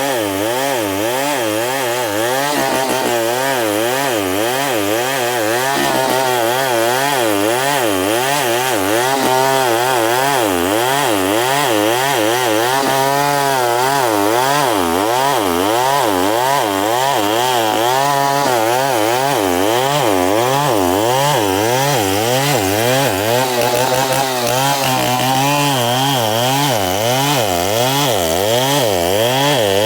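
Chainsaw running under load, cutting through wood, its engine pitch rising and falling over and over, about once or twice a second, without a break.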